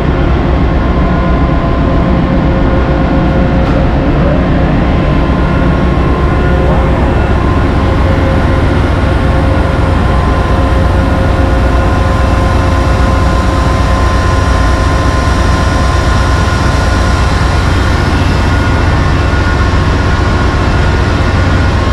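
Steady, loud machinery noise of a ship's engine room: a deep hum with several steady whining tones above it, no break or change.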